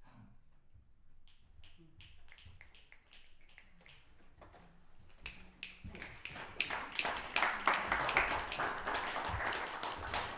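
Audience applause: a few scattered claps that build into full, dense clapping from about six seconds in.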